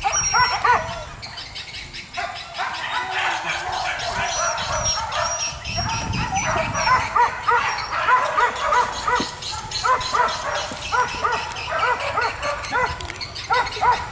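Pack of boar-hunting dogs barking and yelping in rapid, overlapping volleys that run on without a break.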